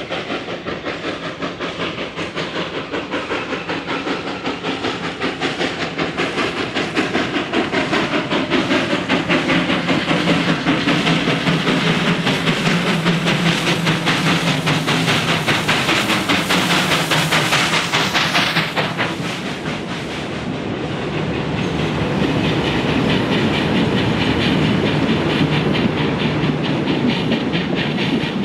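North British-built R class Hudson steam locomotive working hard, its rapid exhaust beats and steam hiss growing louder as it approaches. The hiss cuts off suddenly about two-thirds of the way through as the engine passes. Then the carriages roll by with a clickety-clack of wheels on the rails.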